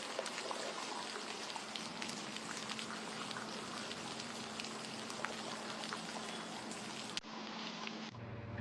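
Steady rain falling, a constant hiss dotted with many small drip ticks. About seven seconds in, the sound cuts abruptly to a duller, thinner version.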